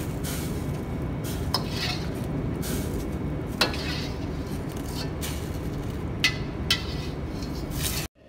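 Metal slotted ladle clinking against a steel wok and plate as boiled vegetables are scooped out of the water, several sharp clinks over a steady low rumble from the gas wok burner. The sound cuts off abruptly near the end.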